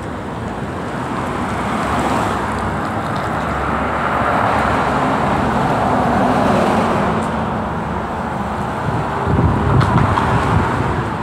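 Street traffic: cars passing on the road, swelling as one goes by through the middle, with a louder low rumble near the end.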